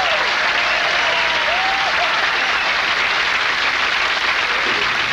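Studio audience applauding steadily, with a few voices calling out early on.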